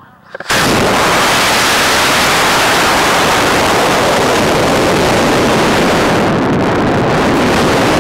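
A model rocket launch heard from an onboard camera. About half a second in the motor ignites with a sudden, very loud rushing noise, the motor burn and the airstream over the rocket body as it climbs, which holds steady and loses some of its hiss near the end as the climb slows.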